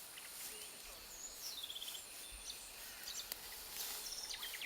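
Outdoor ambience with birds calling: a descending run of short chirping notes about a second in and a few brief high calls near the end, over a steady faint high insect drone.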